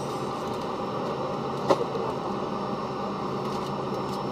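Steady rushing cabin noise of an Ilyushin Il-96-300 airliner taxiing on its four Aviadvigatel PS-90A turbofans, heard from inside the passenger cabin. A single sharp click about two seconds in.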